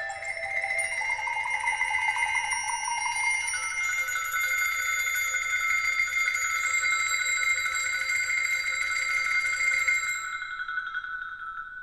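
Small hanging bells on a percussion rack ringing together, several pitches overlapping in a continuous metallic ring, with a wavering tone early on. About ten seconds in most of the ringing stops and one bell tone keeps sounding.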